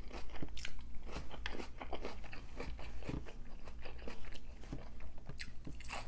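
Chewing and irregular crunching as someone eats a birria taco and raw jalapeño slices.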